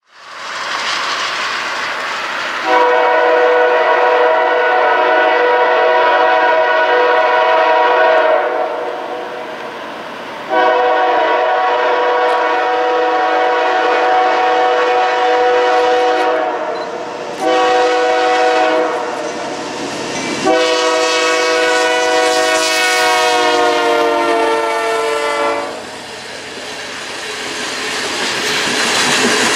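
BNSF diesel locomotive's multi-chime air horn sounding two long blasts, a shorter one and a long one, the standard grade-crossing signal. Its pitch drops near the end of the last blast as the locomotive passes, and then freight cars roll by with their wheels clacking over the rail joints.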